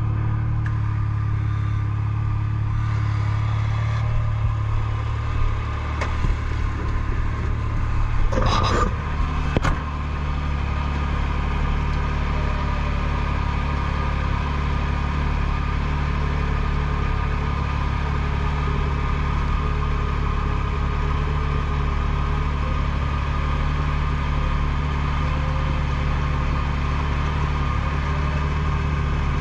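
Side-by-side engine idling steadily, with a brief burst of louder noise about eight to ten seconds in.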